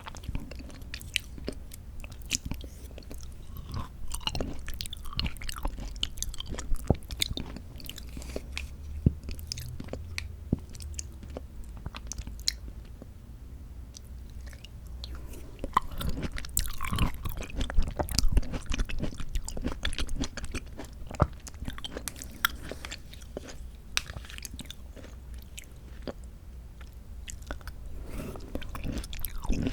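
Close-miked chewing of soft mandarin orange segments from a fruit cup, with wet mouth clicks and smacks, busier in two stretches.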